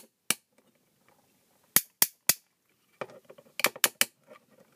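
Black 3D-printed replacement ratchet joint in a Warbotron toy figure's foot being clicked through its stops by hand: loud, sharp clicks in small groups, three about two seconds in and a quick run of four near the end, with faint handling rustle. A tight ratchet, each click a firm detent.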